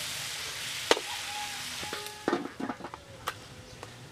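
Pork sizzling in a shallow dark soy-and-pineapple sauce in a metal wok while a metal spatula stirs and scrapes it, with a sharp clink of spatula on wok about a second in. The sizzle drops away about halfway through, leaving a few knocks against the pan.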